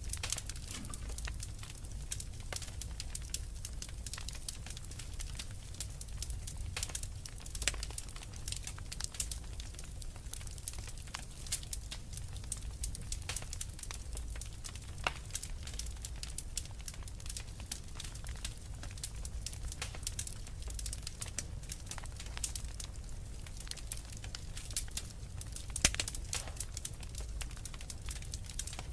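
Fireplace fire crackling: irregular sharp pops and snaps over a low steady rumble, with one louder pop near the end.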